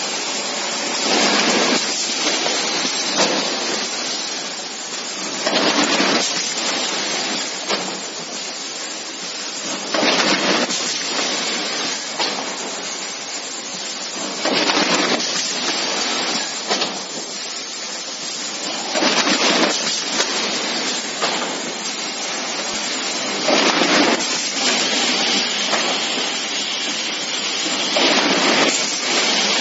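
LC-ZX25 carton packing machine and its bottle conveyor running steadily. A louder rush of machine noise repeats about every four and a half seconds, in time with the packer's working cycle.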